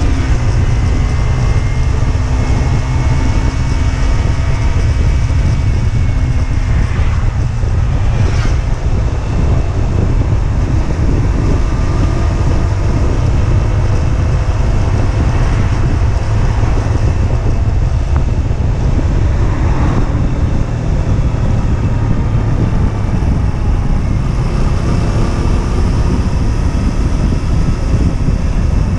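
Husqvarna Svartpilen 125's single-cylinder engine running at road speed, holding a mostly steady pitch with small changes in engine speed, under heavy wind noise on the microphone.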